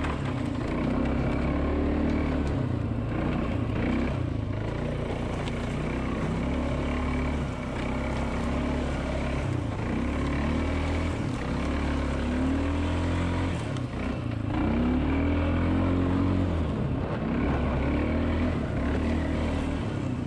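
ATV (quad) engine being ridden along a trail, revving up and down; its pitch climbs again and again with bursts of throttle.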